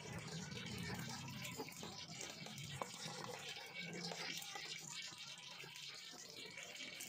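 Metal tongs working chicken pieces through wet batter in a stainless steel bowl, then tossing them in dry flour coating. Faint wet sloshing gives way to a scraping, brushing rustle of flour, with a few light clicks of the tongs against the bowl.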